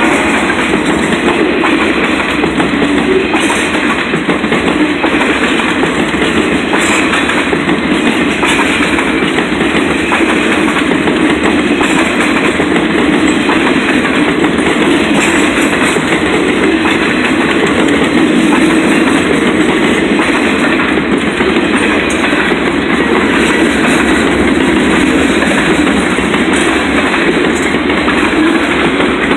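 Freight train cars rolling past a grade crossing: a steady loud rumble with the clickety-clack of wheels over the rail joints.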